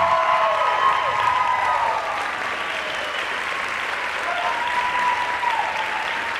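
Audience applauding steadily as the music ends, with voices cheering over the clapping near the start and again about five seconds in.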